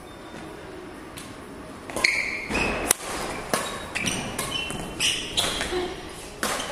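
Badminton rally: rackets striking the shuttlecock in sharp cracks, mixed with short squeaks of shoes on the court floor, starting about two seconds in.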